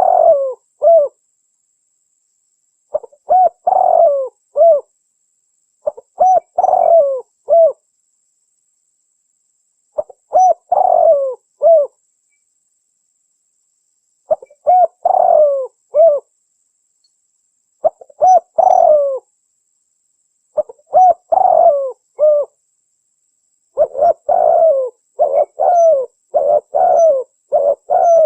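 Spotted dove (tekukur) cooing in repeated phrases of several notes each, a few seconds apart, the phrases crowding together in a run near the end; the uploader presents it as a female calling to males, used as a lure call.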